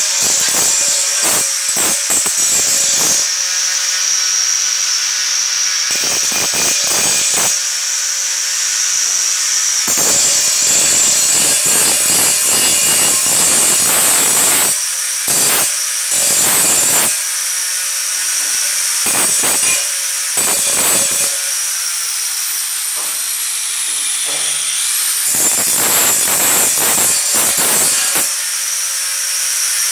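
Corded angle grinder running with a steady high whine, its abrasive disc grinding and polishing a steel rectangular tube. The harsh grinding noise comes and goes many times as the disc is pressed to the metal in passes and lifted off.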